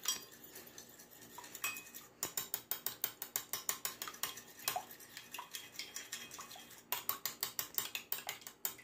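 A metal spoon beating an egg in a glass bowl: quick, rhythmic clinks of spoon against glass, several a second, with short breaks about two seconds in and near seven seconds.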